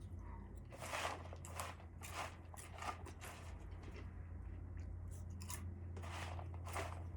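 A few short crunching or rustling noises over a steady low hum.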